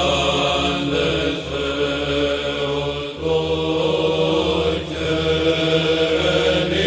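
Soundtrack of Byzantine-style chant: voices singing slow, long notes over a steady low held drone.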